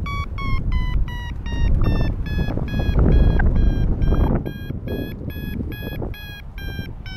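Paragliding variometer beeping its climb tone, about three to four short beeps a second; the pitch dips slightly, then rises about two seconds in and stays higher, signalling that the glider is climbing in lift. Wind rumbles on the microphone underneath.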